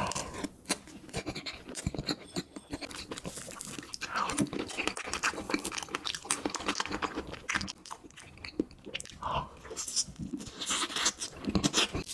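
Close-miked eating sounds: chewing and biting into strawberry cream cake and fresh strawberries, with many small wet mouth clicks and smacks.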